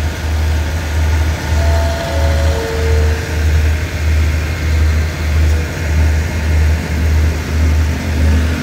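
Diesel engine of the stationary train idling with a steady low throb, pulsing about twice a second. A few short tones at stepped, falling pitches sound about two seconds in.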